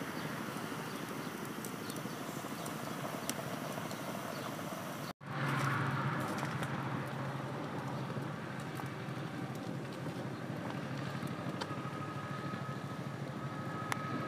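Open wood fire burning, with steady rushing flames and scattered crackles and pops from the burning sticks; after a brief break about five seconds in, the flame noise is a little louder.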